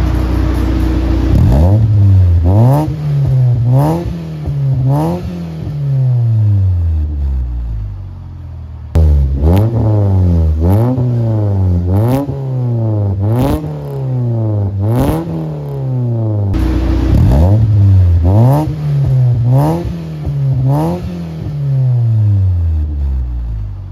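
Mitsubishi Lancer Cedia's four-cylinder engine being blipped on the throttle through its new high-flow catalytic converter, REB spiral resonator and HKS muffler. The pitch rises and falls about once a second, four or five revs in a row, and drops back toward idle between three separate runs.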